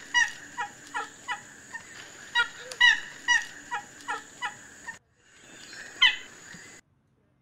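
Oriental pied hornbill calling: a rapid series of short notes, about two to three a second, each falling in pitch. After a brief break about five seconds in, one more loud call, then the sound cuts off.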